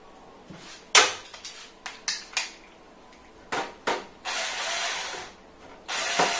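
Hands working a screwdriver and cables inside a steel PC case: a series of sharp clicks and knocks, the loudest about a second in, then two stretches of scraping and rustling, each about a second long.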